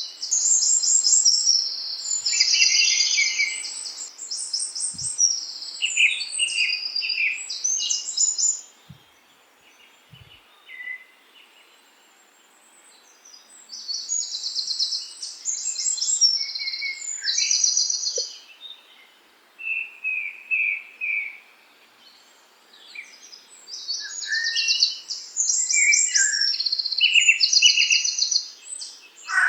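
Songbirds singing in bouts of rapid, high chirping trills, each burst lasting a few seconds, with brief lulls between them.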